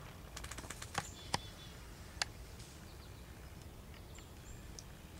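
Crackling and rustling in dry leaf litter in the woods: a quick run of small crackles, then three sharp twig-like snaps in the first two seconds or so. Two short, high bird chirps, one early and one later.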